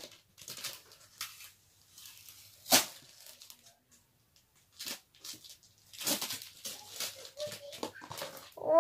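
Cardboard packing being pulled and torn off a skateboard's wheels and trucks: scattered rustling and scraping, with one sharp loud snap about three seconds in and a busier stretch of rustling near the end.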